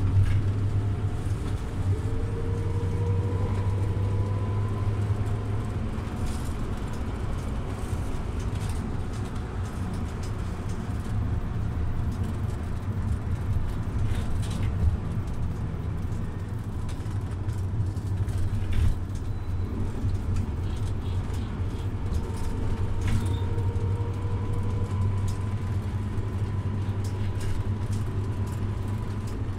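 Scania OmniLink city bus running, a steady low drone throughout. A faint whine rises twice, about two seconds in and again past twenty seconds, as the bus pulls away. A few knocks and rattles come in between.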